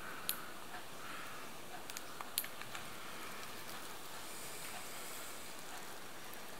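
Quiet kitchen handling over a steady faint hiss: a few light clicks and taps, one just after the start and a small cluster about two seconds in, as a bowl of soup is seasoned.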